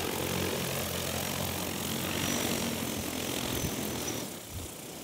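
EAVision J100 agricultural spray drone's propellers whirring steadily as it is brought down to land. The sound drops off near the end.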